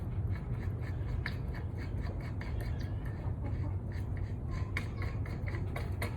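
Adjustable wrench working a reverse-threaded propane hose fitting: small metal clicks, ticks and scraping rubs as it is fitted and turned, over a steady low hum.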